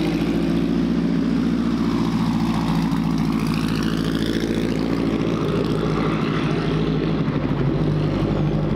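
Engine of a vintage open-wheel race car running loud and steady as the car is push-started by a pickup truck, since it has no on-board starter.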